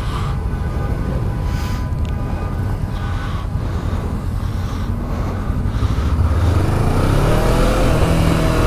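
Sport motorcycle's engine running as the bike turns and rides off, with wind and road noise on the helmet microphone. The engine's pitch climbs about two-thirds of the way in as it accelerates.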